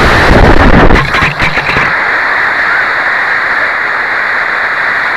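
Solid-fuel model rocket motor (an Estes C engine) burning, heard through the onboard keychain camera as a loud rushing roar. The roar drops off about a second in, followed by a few knocks and rattles, then a steady hiss.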